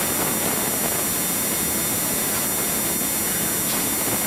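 Steady, loud hiss and rush of noise from an old videotape recording, with no clear events in it.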